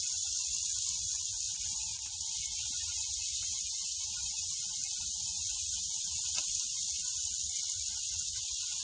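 Butterflied shrimp sizzling on a hot grill grate: a steady hiss with scattered faint crackles.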